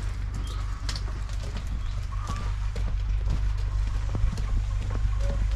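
Loaded wheelbarrow pushed along a stony dirt path: a steady low rumble of the wheel rolling, with scattered small knocks and clatters from the frame and load, and footsteps.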